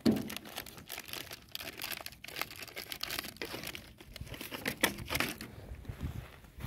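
Small wood fire crackling and popping, a dense, irregular run of short snaps, with a sharp knock right at the start.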